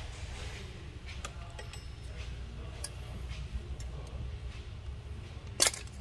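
Small faint clicks of hand work on an engine, with one sharp click near the end, over a low steady hum.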